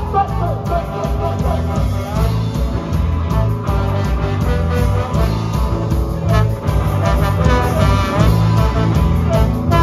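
Live ska-punk band playing: trombone over electric guitars and drums, with a steady driving beat.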